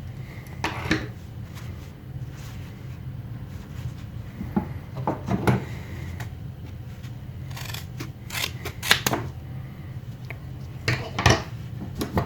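Trauma shears being squeezed through thick belt material, giving a series of irregular sharp snips and crunches in clusters.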